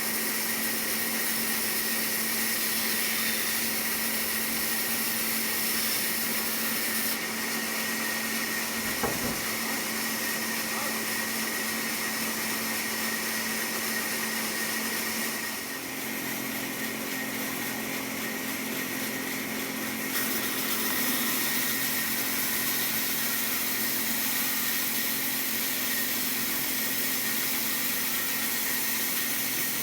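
Wood-cutting power saw running steadily with an even, constant drone, a short click about nine seconds in.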